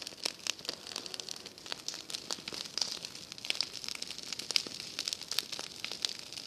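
A burning pile of dry grass and straw crackling, with many irregular sharp pops over a steady hiss.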